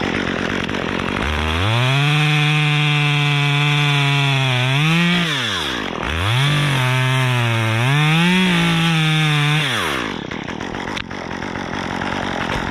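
Two-stroke top-handle chainsaw revved to full throttle and cutting through a section of dead pine trunk. About five seconds in the revs drop away and climb again, the saw runs hard again, and about ten seconds in it falls back to idle.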